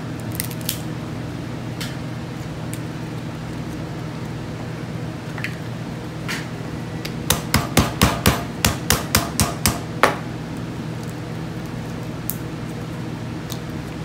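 A quick run of about ten sharp clicks and knocks from cracking and snipping cooked lobster shells to get the meat out, over a steady low hum.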